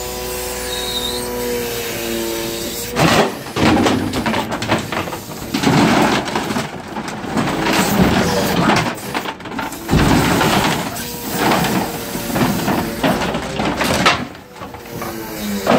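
Grapple truck's hydraulics whining with a steady tone for the first few seconds. Then broken particleboard locker panels are released from the grapple and crash and clatter into a steel waste container in a run of bangs. Near the end there is a short lull before the whine returns.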